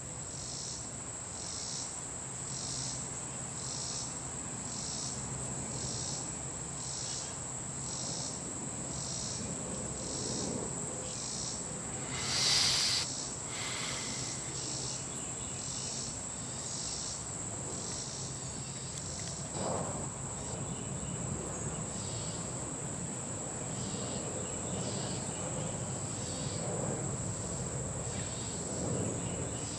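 Insects chirping: a steady high trill with a regular chirp below it about every two-thirds of a second. About twelve seconds in, a loud noisy rush of about a second cuts across it, followed by a shorter one.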